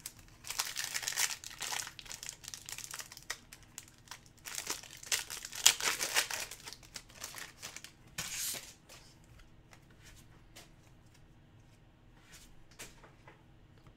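Hockey card pack wrapper being torn open and crinkled by hand, in irregular bursts of crinkling for most of the first nine seconds, loudest about halfway through. After that there are only a few faint ticks of handling.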